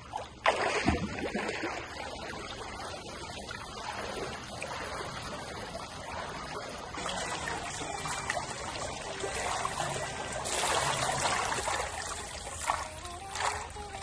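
Water trickling and splashing as a steady wash of noise, changing character about seven seconds in.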